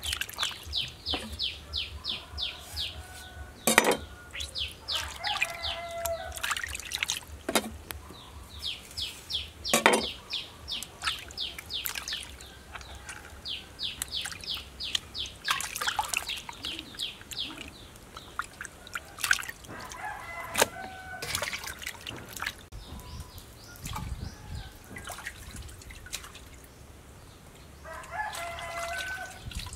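Water splashing and dripping as whole octopuses are rubbed and washed by hand in a metal basin of water. Chickens call in the background, with a rooster's crow near the end, and there are bursts of rapid high-pitched ticking.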